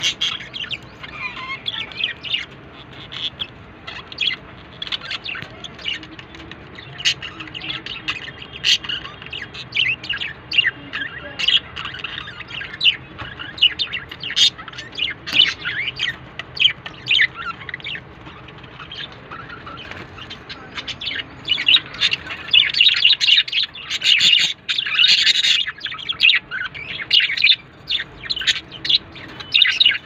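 Several budgerigars chirping and chattering in quick, short chirps. The chatter grows denser and louder about three-quarters of the way through.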